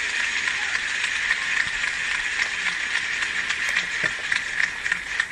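Wheel of Fortune's prize wheel spinning, its pegs clicking rapidly past the pointer's flipper over a steady hiss of studio applause.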